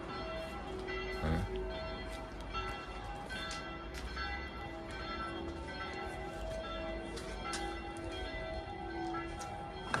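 Church bells ringing: several bells of different pitch strike again and again in an overlapping peal.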